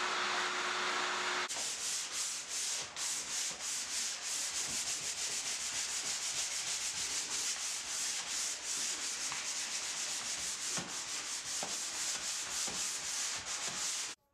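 A power sander runs with a steady hum for the first second and a half. Then comes sanding by hand on wood: quick, rhythmic back-and-forth rubbing strokes, about three or four a second, that stop abruptly near the end.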